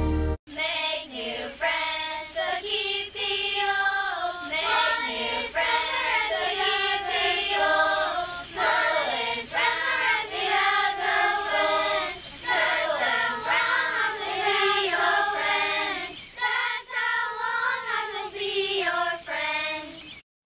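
A group of young girls singing a song together in unison, starting abruptly after a short break.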